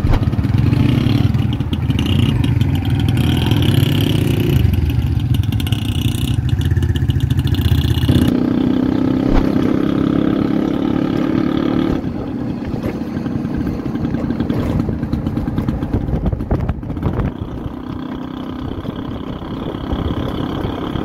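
Motorcycle engines running steadily, the sound changing abruptly about 8 seconds and again about 12 seconds in.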